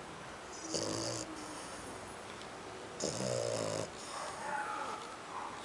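A sleeping flat-faced dog snoring. There are two rattling snores about two seconds apart, the second one longer.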